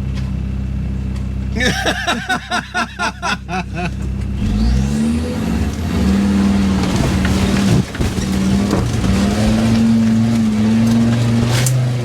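Off-road 4x4 engine idling, then revved up about four seconds in and held at high revs with the pitch wavering as it pulls on an off-road climb.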